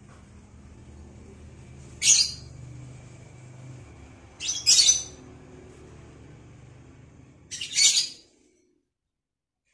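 Caged lovebird giving three short, shrill calls about two and a half seconds apart, the second and third each broken into two parts, over a faint low hum. All sound stops abruptly shortly after the last call.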